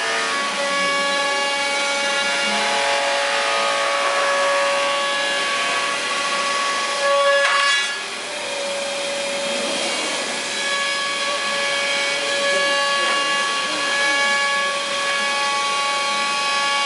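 5-axis CNC machine's spindle running with a steady whine while its tool cuts, under a rasping cutting noise. The cut grows louder for about half a second a little before halfway, then the whine briefly drops out and comes back.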